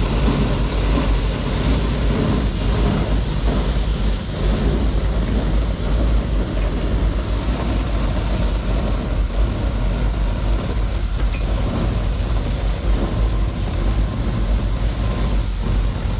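Heavy farm machinery running steadily, a strong low engine rumble under a constant high hiss.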